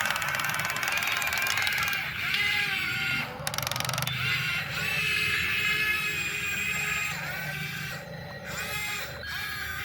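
Small electric gear motors of a remote-control toy excavator whining as its functions are worked. The whine starts and stops several times and shifts in pitch with each movement.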